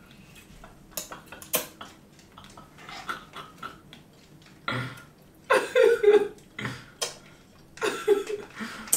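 Brief non-word vocal sounds, loudest between about five and six seconds in and again near the end, with a couple of sharp clicks of cutlery against plates in the first two seconds.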